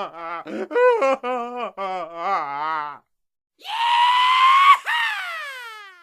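Cartoon sound effects: a quick run of short, wobbly, high-pitched vocal syllables, like a cartoon character's jabbering. After a brief pause comes a held, slightly rising scream-like cry that breaks off into a long falling glide and fades away.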